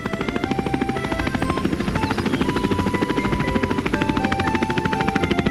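Cartoon sound effect of a quadcopter drone flying: a fast, even propeller chop. Light background music plays a simple melody of held notes over it.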